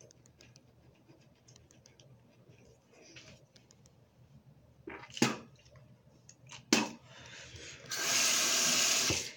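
Bathroom sink tap running in a steady hiss for about a second and a half near the end. Before that, faint toothbrush scrubbing and two sharp knocks.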